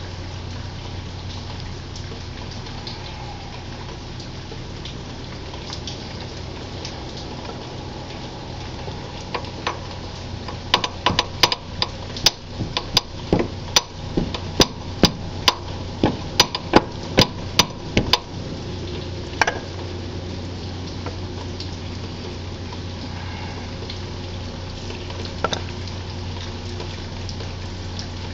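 Sharp metallic taps, about two a second for some eight seconds starting about a third of the way in, then two single taps: a new lower crankshaft oil seal being tapped into the crankcase of a 25 hp Kawasaki FH721V engine. A steady low hum runs underneath.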